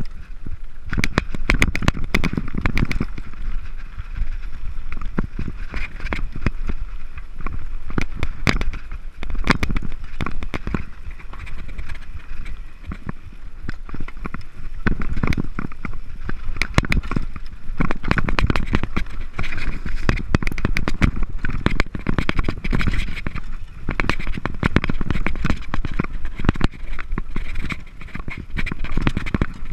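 Mountain bike descending a rocky dirt trail: tyres rolling and crunching over loose stones, with frequent sharp rattles and knocks from the frame, chain and suspension fork over a steady low rumble.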